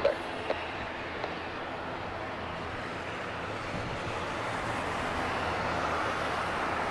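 Jet aircraft engines running at a distance, a steady rush over a low hum that slowly grows louder.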